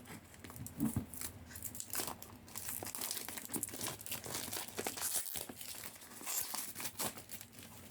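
Wrapping on a tarot deck being crinkled and torn open by hand, a quick run of small crackles and rustles throughout.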